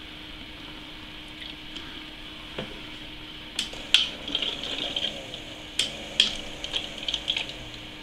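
PC water-cooling loop being primed: sharp clicks as the power supply is switched, the loudest about halfway through, then bubbly, hissing gurgles of coolant and air pushed through the reservoir and tubing by the 12 V pump, a sign that air is still being worked out of the loop.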